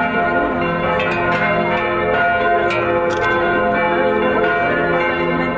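Several church bells ringing together, struck over and over so that their tones overlap in a continuous peal.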